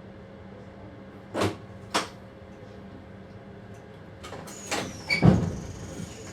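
Knocks and clunks inside a train's driver's cab over a steady low hum: two sharp knocks, then a cluster ending in a heavy thump about five seconds in, with a thin high whine setting in just before it.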